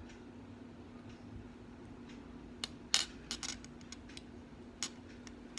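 Small metal parts of a Glock 17 Gen 4 pistol clicking and clinking as they are handled during disassembly. A few sharp clicks come about two and a half seconds in, the loudest just after, and one more near the end.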